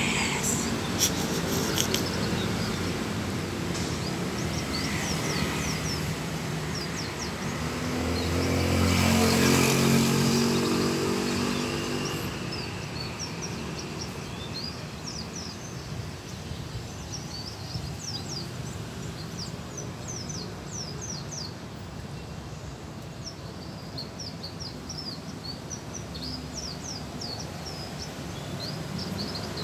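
White-eyes (pleci) giving quick, high, thin chirps again and again. A vehicle engine passes by, growing louder and then fading, loudest about nine to ten seconds in.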